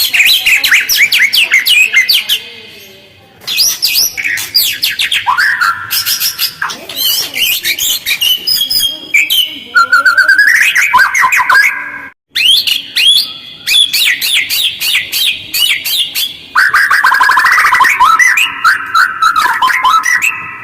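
White-rumped shama (murai batu) singing in fast, rough phrases: rapid trills and chattering sweeps follow one another with only short pauses, and the song breaks off briefly about twelve seconds in.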